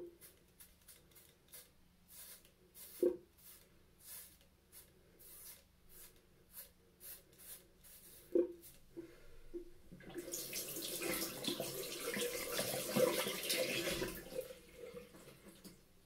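Gillette Mach3 cartridge razor scraping through shaving foam on a scalp in short repeated strokes, with a couple of sharper knocks. About ten seconds in, a tap runs into a sink for about four seconds, louder than the strokes.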